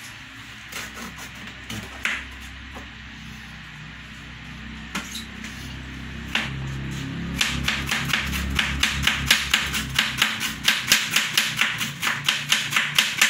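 Kitchen knife chopping cabbage on a plastic cutting board: a few scattered knocks at first, then from about seven seconds in a fast, even run of strokes, about four a second, as the cabbage is shredded.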